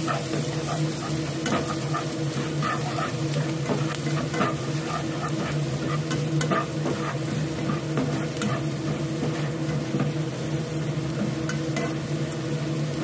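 Minced garlic sizzling in hot oil in a nonstick frying pan, stirred and scraped with a spatula, with many small scattered crackles. It is being sautéed until it colours, over a steady low hum.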